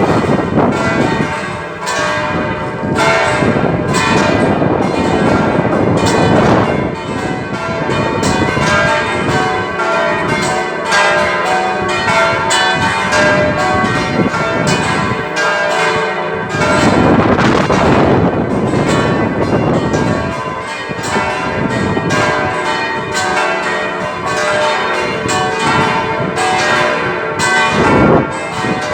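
Peal of six church bells ringing together, struck several times a second so that the strikes overlap in a continuous, loud ringing.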